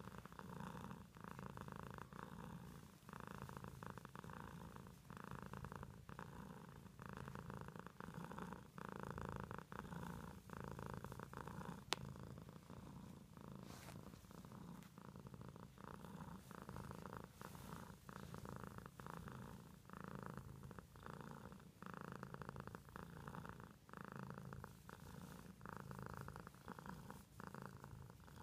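Domestic cat purring softly and steadily while being scratched on the cheek and head, the purr swelling and easing with each breath about once a second. A single sharp click about halfway through.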